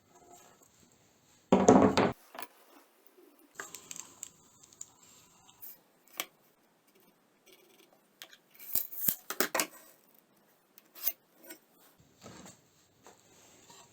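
Scattered clicks, clinks and scrapes of small metal objects being handled, with a brief loud burst of noise about one and a half seconds in and a denser run of clatter near the end.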